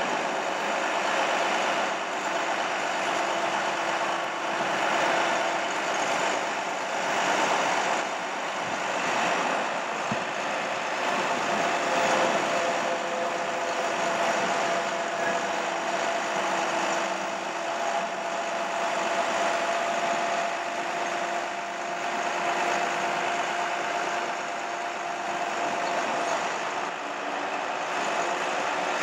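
2005 International 4300 bucket truck's engine idling steadily, with a faint constant whine over it.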